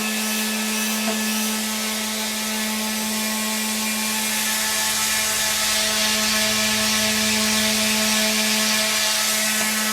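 An electric motor running steadily with a constant hum and a hiss of air, a little rougher from about four to nine seconds in.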